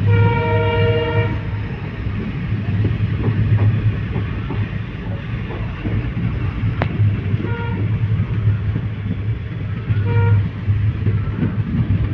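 Passenger train running, with the steady low rumble of the carriage on the rails heard from inside at an open window. A horn sounds for about a second at the start, then gives two short toots later on.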